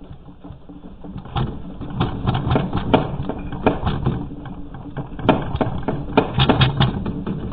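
A room shaking in a strong earthquake: a low rumble builds, and about a second and a half in rapid rattling and knocking starts and keeps on, loudest around five to seven seconds in.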